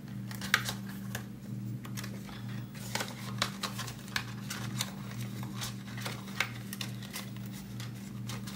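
Paper money and cash envelopes being handled: a run of crinkles, rustles and small clicks, over a steady low hum.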